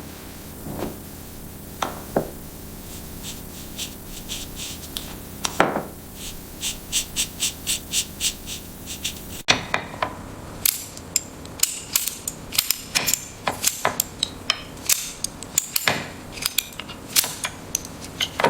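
Hand tools working on metal: a few separate knocks, then a run of light regular clicks about three a second. After a sudden cut, a quick series of sharp metal taps and clanks follows.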